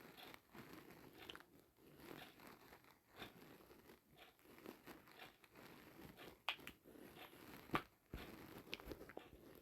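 Near silence with faint rustling and scattered small clicks of handling noise close to the microphone, and two sharper clicks in the second half. No alert tone sounds.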